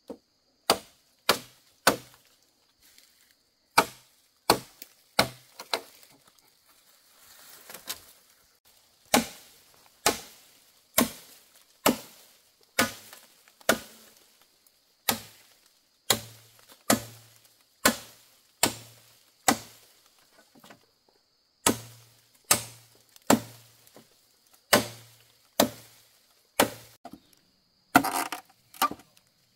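Wood being chopped with a blade: about thirty sharp strikes in runs of one to two a second, broken by short pauses, many of the blows landing with a dull thud.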